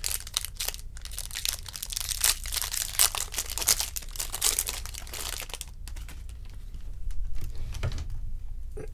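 Foil wrapper of a pack of baseball trading cards being torn open and crinkled: a dense crackling for about six seconds, then quieter handling as the cards come out.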